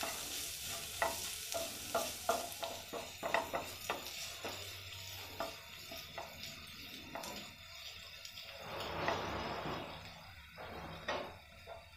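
Minced ginger, garlic and chili flakes sizzling in oil in a non-stick pan, the sizzle thinning after the first few seconds, while a wooden spatula stirs with irregular scrapes and taps against the pan.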